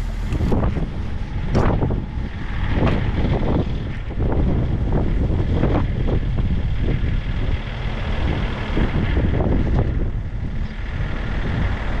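Strong storm wind buffeting the microphone in gusts: a heavy low rumble with rushing noise that surges irregularly.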